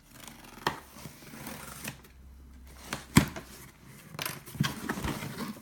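A big cardboard box being opened and its contents handled: scattered knocks, clicks and rustling, the loudest a sharp knock about three seconds in.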